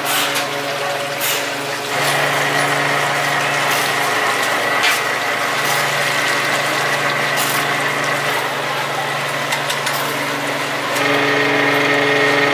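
Steady motor hum with a high whine, from the fryer's oil purifier pump, over hot frying oil churning and sizzling in a steel wok. The hum steps up about two seconds in and again near the end.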